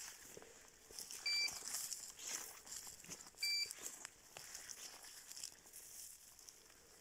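Two short electronic beeps about two seconds apart, the kind a hunting dog's beeper collar gives, over the rustle and crackle of dry grass and brush being pushed through on foot.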